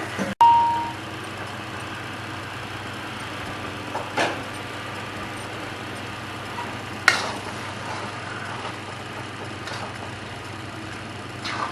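Steady hiss of chicken cooking in a pan on the stove, with a few sharp clinks of a metal utensil against the pan. A brief ding sounds about half a second in.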